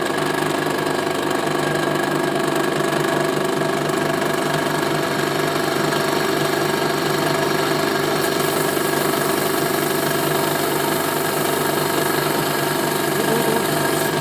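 Drill press running with its twist drill cutting a hole in a metal workpiece clamped in a vise: a steady machine hum with several fixed tones.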